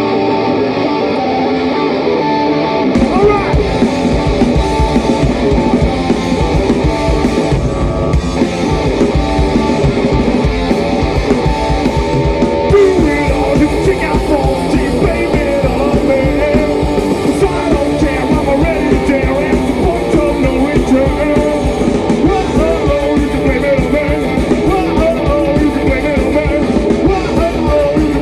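Rock band playing live: guitar and singing, with the drums and bass coming in about three seconds in and keeping a steady driving beat.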